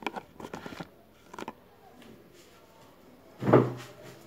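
Light clicks and knocks from handling a sewing machine set up for embroidery, then a short louder burst with a low hum about three and a half seconds in.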